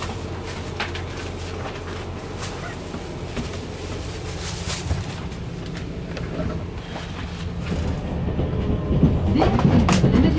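Interior of a Limited Express Shinano electric train pulling away: a steady low rumble of the running gear with scattered clicks of the wheels on the rails, growing louder near the end as it gathers speed.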